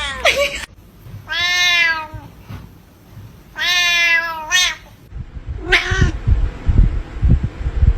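Domestic cat meowing: a short call, then two long, drawn-out meows a couple of seconds apart, followed by shorter calls. Low thumps and bumps fill the last two seconds.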